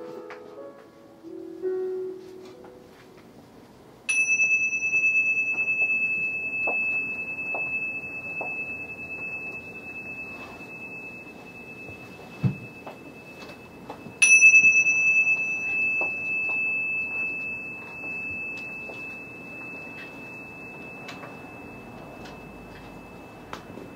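A small bell struck twice, about ten seconds apart, each a clear high tone that rings on and fades slowly. Before it, the last notes of a piano fade out, and a soft low thump falls between the two strikes.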